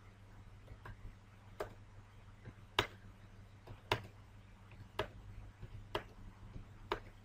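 Sharp single keystroke clicks on a computer keyboard, spaced roughly once a second and not quite evenly, over a low steady hum.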